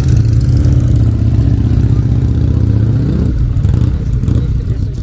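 A vehicle engine running loudly close by, its pitch climbing briefly about three seconds in as it revs.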